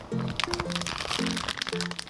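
Plastic zip-top bag crinkling as hands grip and shift it, with light crackling throughout, under background music with a simple stepped melody.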